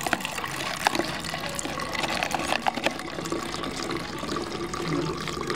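Milk pouring from a carton into a plastic bottle, a steady splashing fill with scattered small clicks.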